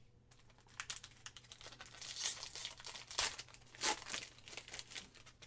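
A foil trading card pack of Panini Mosaic football cards being torn open and its wrapper crinkled: a run of crackling rustles, with the loudest rips about two, three and four seconds in.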